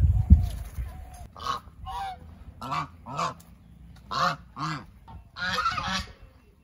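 Geese honking: about eight short, harsh calls, mostly in pairs, starting about a second in. A low thump sounds right at the start.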